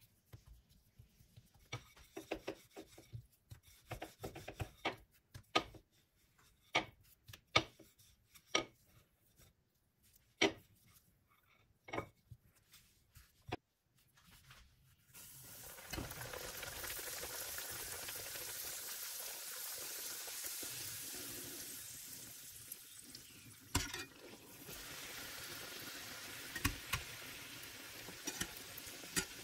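A run of light taps and knocks as bhatura dough is shaped by hand on a silicone mat on the counter. About halfway through, a bhatura goes into hot oil and a steady frying sizzle starts and carries on. Near the end a slotted spoon clinks against the stainless steel pan.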